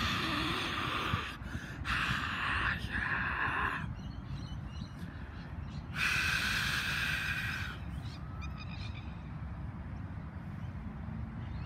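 A person imitating a cheering crowd with three breathy, hissing exhalations of a second or two each, over a steady low rumble of wind on the microphone. Faint bird chirps come in near the end.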